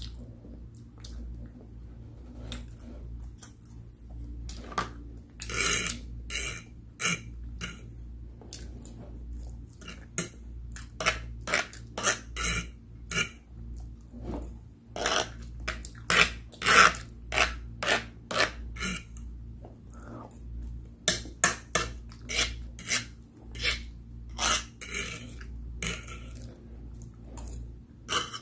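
Close-miked eating: instant noodles and meat being chewed with many wet mouth clicks and smacks in irregular clusters, and a fork clinking and scraping on the tray. A steady low hum runs underneath.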